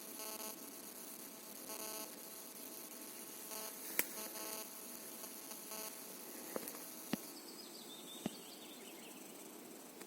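Faint buzzing that comes and goes in several short spells, with a few sharp clicks and a short, wavering high call near the end.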